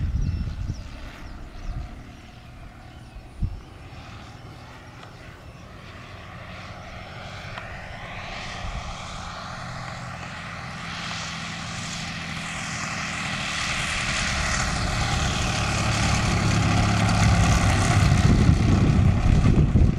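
100cc engine and propeller of a giant-scale Yak 55M RC aerobatic plane running throttled back on its landing approach. The sound grows steadily louder as the plane comes in, its pitch shifting up and down.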